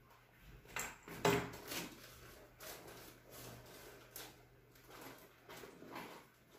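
A leather handbag being handled and rummaged through: a string of irregular rustles and knocks as things inside are moved about, the loudest about a second in.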